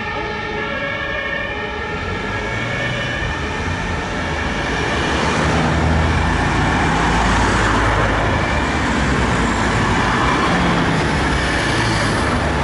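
Two-tone siren of a German fire engine dying away in the first second or two, then city traffic noise of engines and tyres, with a deep rumble growing louder about halfway through.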